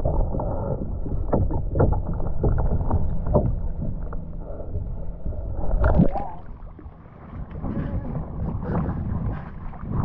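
Kayak paddling: the paddle blade dipping and pulling through the water with splashes and water sloshing at the hull. Several quick splashes come one after another, then a louder one about six seconds in.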